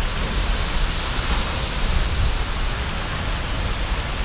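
Steady rushing of a tall waterfall plunging off a cliff, heard close up, with a heavy low rumble.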